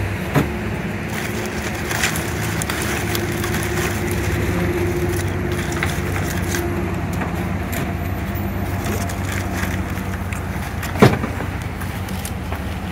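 A vehicle engine idling steadily, with a few knocks as cases of bottled water are loaded into the truck; the sharpest knock comes near the end.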